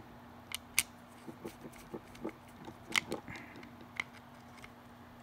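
Scattered light clicks and taps from handling a plastic two-pole circuit breaker and a screwdriver, with a sharper click about three seconds in and another about four seconds in, over a faint steady hum.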